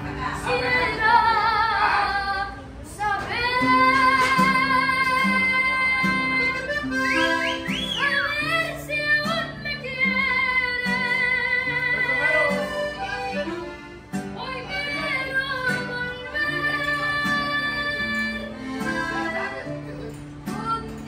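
A boy singing a ranchera, holding long high notes with a wide vibrato, over acoustic guitars plucking a bass line beneath him. The singing breaks off briefly twice between phrases.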